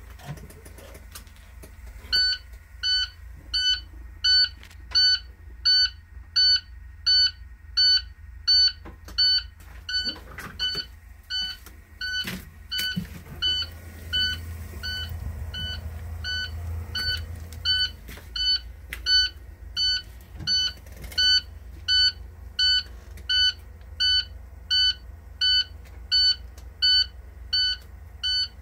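An IC school bus's dashboard warning buzzer beeping steadily at start-up, about one and a half beeps a second, beginning a couple of seconds in, over a low steady rumble. A few clicks and knocks sound around the middle.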